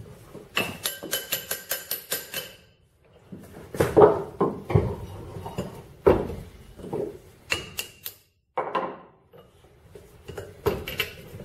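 Metal parts of a truck's front axle shaft and U-joint knocking and clinking on a wooden workbench as they are handled: a quick run of about ten light, ringing metal taps near the start, then several heavier separate knocks.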